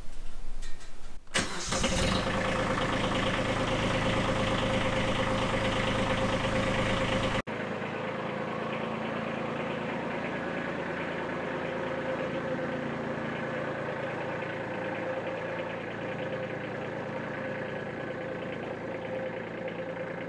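Kubota B2301 compact tractor's three-cylinder diesel starting after glow-plug preheat: a brief crank that catches about a second in, then the engine running steadily at idle. The engine sound drops abruptly to a lower level a little past a third of the way through.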